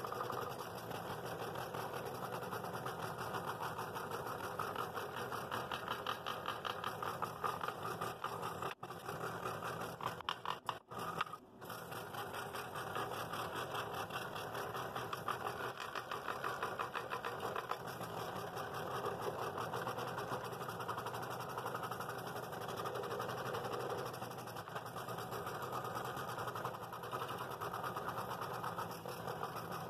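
Scroll saw running and cutting through a thick wooden blank, its blade stroking up and down in a fast, steady rhythm. The sound drops out briefly a few times about a third of the way in.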